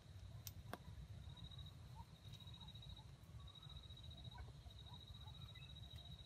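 Near silence with faint outdoor ambience: a low rumble, a thin high steady tone that breaks off and resumes, two sharp clicks in the first second and a few faint short chirps.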